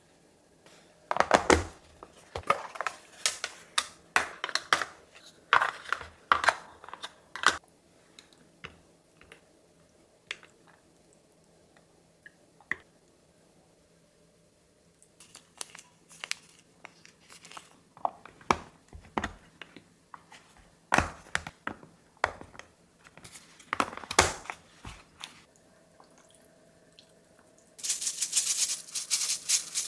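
Kitchen handling sounds: scattered knocks and clicks of utensils and containers being moved and set down, with a quiet stretch in the middle and a steady hiss for about two seconds near the end.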